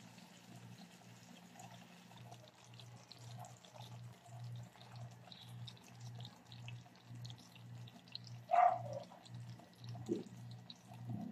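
Thick chicken-and-banana-ketchup sauce bubbling in a pan, with faint scattered pops and ticks over a low hum that pulses about twice a second. A louder short sound comes about 8.5 s in.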